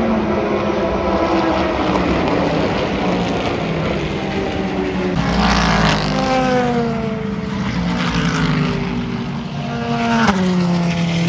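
Race cars passing at speed: two close pass-bys about five seconds apart, each arriving suddenly and dropping in pitch as it goes by, over the steady engine note of other cars further round the track.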